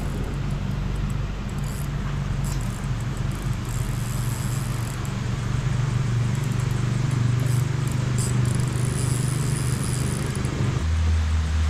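A steady low motor hum over a haze of background noise, with faint high ticks scattered through it. Near the end the hum changes to a lower, steadier drone.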